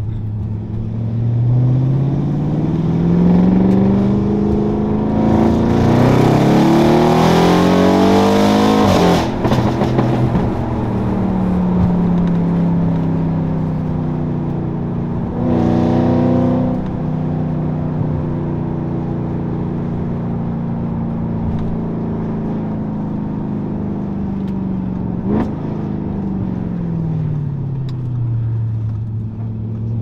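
Stage 2 tuned Audi RS6's twin-turbo 4.0-litre V8 with a Milltek exhaust, heard from inside the cabin under hard acceleration: the revs climb for several seconds, loudest just before a sharp drop about nine seconds in. It then runs steadily at cruise, with a brief rev rise around sixteen seconds and a short crack near twenty-five seconds, and the revs fall near the end.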